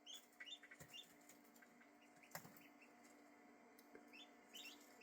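Faint, scattered peeps of young ducklings and goslings, short rising chirps every half second or so, with a single click about two seconds in.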